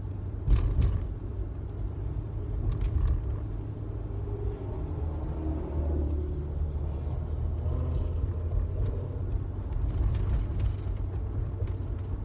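Car driving at low speed, heard from inside the cabin: a steady low road and engine rumble, with a few short knocks or clicks about half a second in.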